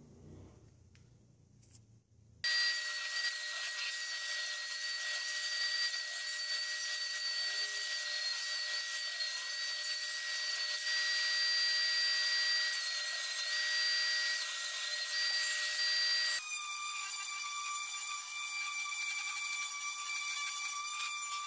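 A benchtop power sander running with a steady high whine as spotted-gum pieces are sanded on it, starting about two seconds in. About three-quarters of the way through it gives way to a handheld orbital sander running with a different, lower steady whine.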